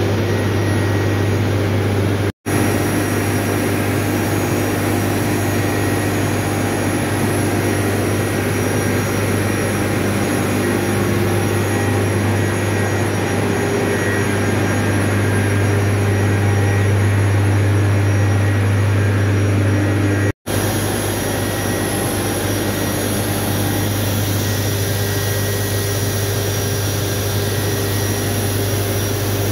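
Steady machine noise of a running steam turbine-generator set and its auxiliary pumps: a strong low hum with several steady higher tones over it. It cuts out briefly twice, a couple of seconds in and about twenty seconds in.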